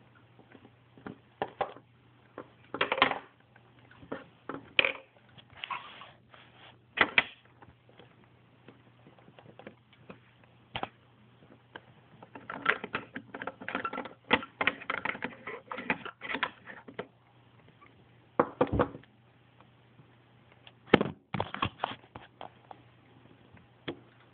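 Irregular taps, clicks and rustles of small plastic Littlest Pet Shop toy figures being handled and set down, with a busier cluster about midway, over a steady low hum.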